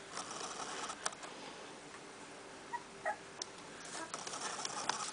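Two-week-old puppy giving a few short, faint squeaks, over rustling of fabric and small clicks.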